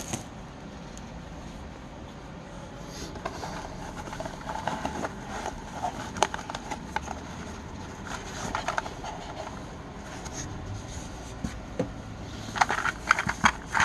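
Handling noise from a tap light set being handled: scattered small clicks and light scrapes, with a quick run of clicks near the end.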